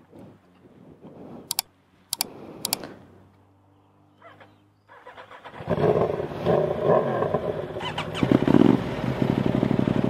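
A few sharp clicks, then about five seconds in the Aprilia RS660's 659 cc parallel-twin engine is started and runs at a loud, steady idle.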